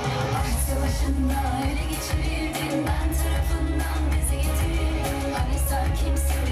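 Live Turkish pop band playing loud through a PA: a woman singing over a drum beat and heavy bass.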